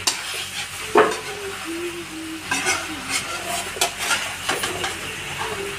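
Chicken sizzling as it fries in its spice masala in a pot, with a spoon stirring and knocking against the pot at irregular moments, the loudest knock about a second in. The masala is at the bhuna stage, browning in oil before the yogurt is added.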